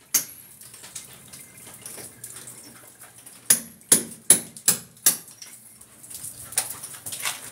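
Hand hammer striking a steel chisel to chip a hole through a plastered brick wall: a quick run of five sharp metallic blows about 0.4 s apart a few seconds in, with single lighter knocks near the start and near the end.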